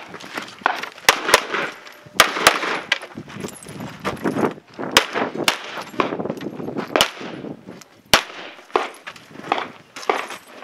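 Pistol shots fired in strings: about a dozen sharp reports at uneven spacing, some in quick pairs and threes, with fainter pops between them.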